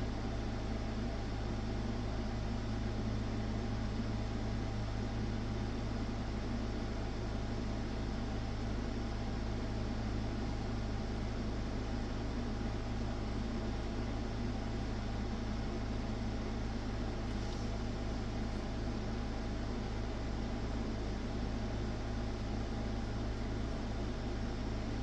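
Steady low electrical hum with an even fan-like hiss, unchanging throughout.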